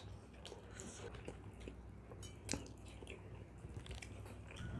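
Faint chewing and wet mouth smacks of people eating soft rice bread with beef curry by hand, with one sharper smack about two and a half seconds in, over a low steady hum.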